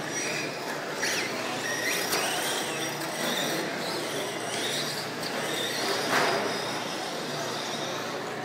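Several 1/10-scale electric RC stadium trucks racing: high whines from their electric motors and gearing rise and fall as they accelerate and brake, several overlapping, over a steady background hiss.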